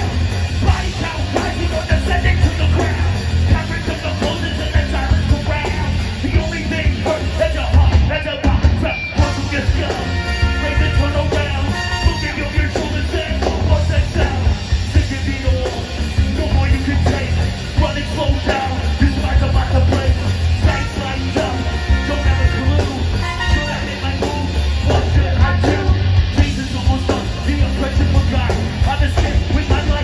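Ska-punk band playing live through the festival PA, heard from the crowd: drums, bass, electric guitar and a trombone-and-trumpet horn section, with the singer on the microphone. There is a brief break in the music about eight seconds in.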